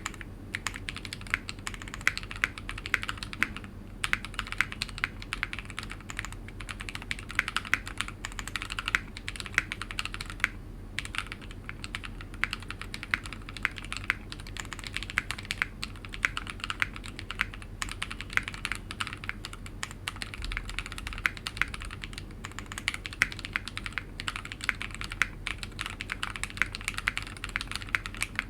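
Fast, continuous typing on a mechanical keyboard with lubed, filmed Raed switches under Cherry-profile PBT keycaps, on a WT60-D board with a polycarbonate plate and resin case. A dense run of keystroke clacks, with short pauses about four seconds in and again around ten seconds in.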